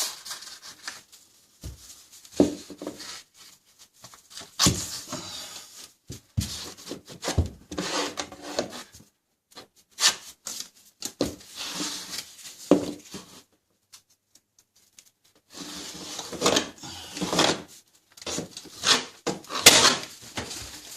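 Drywall knife scraping over wet joint compound and paper tape along a ceiling joint, in repeated strokes with short pauses between them.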